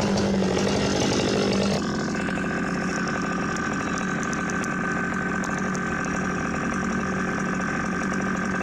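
Long-bar chainsaw running at high revs in the bottom cut of a big Douglas fir trunk, dropping about two seconds in to a lower, steady engine idle that runs on.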